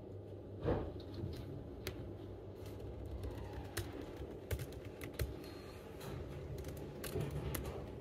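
Typing on a MacBook laptop keyboard: irregular soft key clicks over a steady low hum, with one louder knock about a second in.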